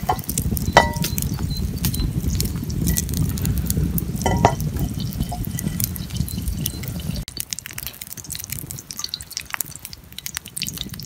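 A wood campfire crackling, with oil heating in a steel frying pan set over it, and two short metallic rings from the pan, about a second in and at about four and a half seconds. The low rumble drops away about seven seconds in, leaving a quieter crackle.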